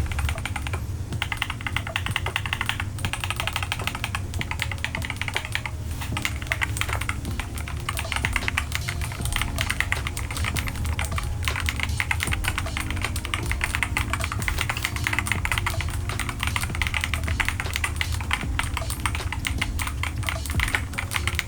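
Fast, continuous typing on a keyboard fitted with Kailh magnetic (Hall-effect) switches: a dense run of key clacks as the switch's sound profile.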